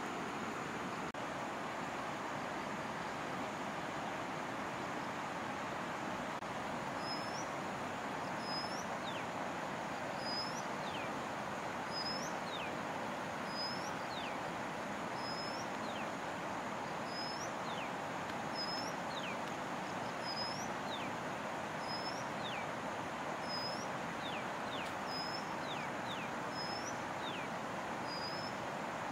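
Steady rush of a shallow river running over rocks in small rapids. From about seven seconds in, a bird repeats a short high call about once a second.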